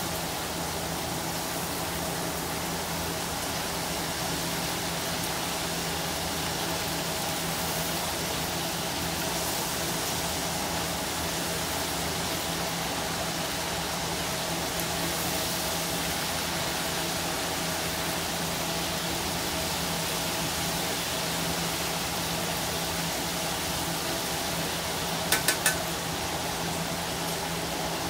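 Whole fish deep-frying in a wok of hot oil: a steady sizzle and bubbling, with a faint steady hum underneath. Three quick clicks near the end.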